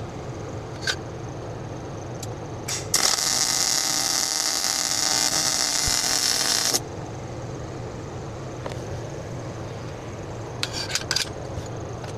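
Stick-welding arc struck and burning for nearly four seconds, a loud, even hiss that starts and stops abruptly, over a steady low hum, with a few light clicks before and after.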